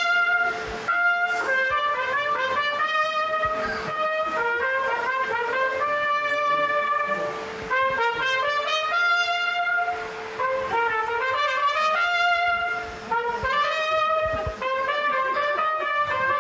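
Trumpet playing a melody of quick runs up and down and held notes, over a steady drone.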